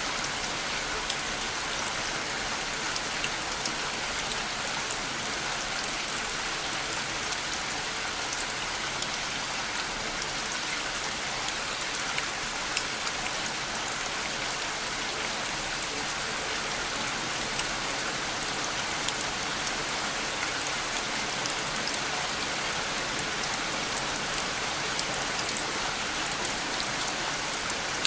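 Steady rain falling, with many small drops pattering and ticking on a surface.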